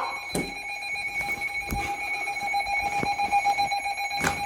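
Steady electronic alert tone from a weather-alert radio sounding for a severe thunderstorm warning, with a few faint knocks over it, the clearest near the end.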